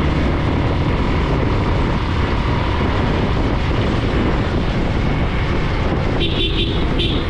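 Wind rushing over a helmet-mounted GoPro microphone on a moving motorcycle, with steady low riding noise from the bike and the road underneath. A short high-pitched sound comes twice near the end.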